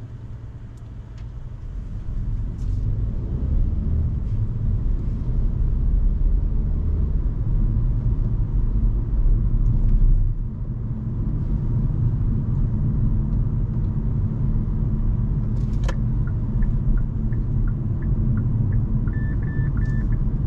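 Hyundai Kona Hybrid driving on city roads: a steady low rumble of road and tyre noise that grows louder over the first few seconds, then holds. A few short, high beeps come near the end.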